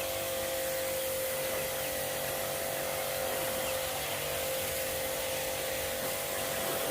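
Electric pressure washer running steadily while its spray gun jets water: a constant motor hum with a steady hiss of spray.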